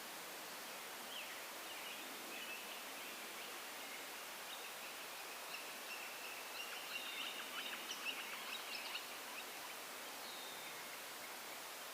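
Small birds calling and chattering over a steady hiss, the calls busiest and loudest about seven to nine seconds in.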